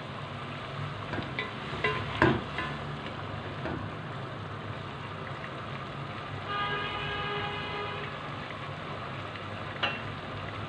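Chicken, vegetables and chicken stock simmering and sizzling in an aluminium pot on a gas burner: a steady bubbling hiss. A few sharp knocks about two seconds in and one near the end, and a short pitched tone around the middle.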